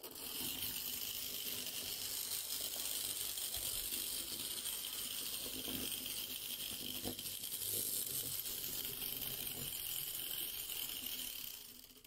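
Tiny 009 live steam locomotive with a single-cylinder engine running around the track with its train, giving a steady hiss and the rattle of small wheels on the rails. Near the end the sound dies away quickly as the train stalls, which can happen while the engine is still cold on its first steam-up.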